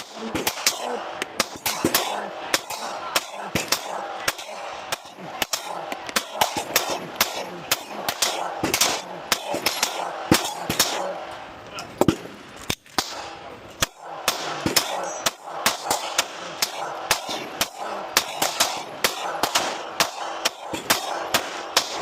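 9mm semi-automatic pistol fired rapidly, many shots in quick succession, with a short break about halfway through that fits a magazine reload before the rapid fire resumes.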